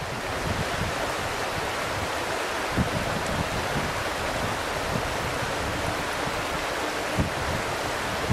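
Shallow river water rushing over stones in a riffle, a steady even rush, with a few brief low bumps of wind on the microphone.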